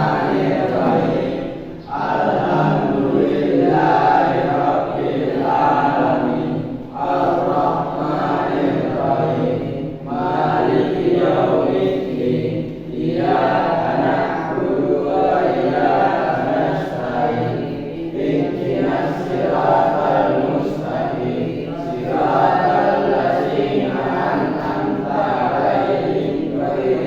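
A class of students' voices chanting together in unison, phrase after phrase with short pauses between them.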